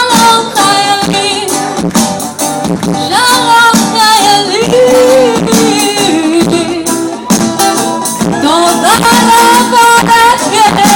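Live music: a voice singing long held notes that slide between pitches, over guitar accompaniment.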